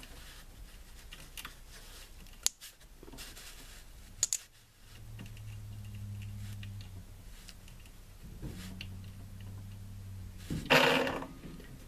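The Raymarine ST4000+ autopilot's drive motor and planetary gearbox, run briefly off bench leads. Two sharp clicks come as the wires are touched on, then a low steady hum for about five seconds, and a short loud burst of noise near the end. It is a lot of noise from the gearbox, which the owner takes as a sign that something in it is not right.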